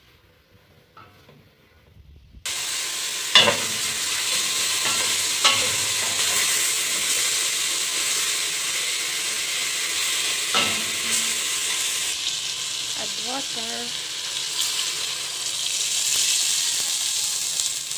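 Chicken pieces sizzling as they brown in hot oil in a stainless steel pot. The sizzle starts suddenly a couple of seconds in, and a wooden spoon stirs the pieces and knocks against the pot a few times. Near the end water is poured in over the chicken.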